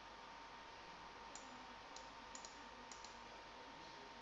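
Faint computer mouse clicks, a few single ones and two quick double clicks, over a low steady hiss and a faint steady tone.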